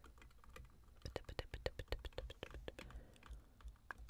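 Fingertips tapping quickly and lightly on the camera lens, a fast run of small clicks, about seven or eight a second, through the middle, then a few scattered taps.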